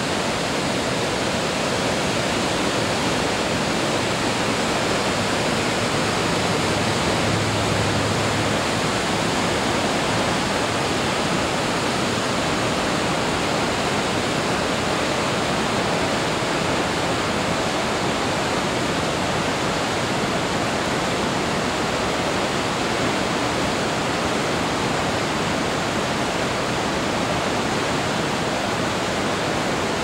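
Whitewater rushing through a narrow rock gorge: a steady, even rush of falling, churning river water.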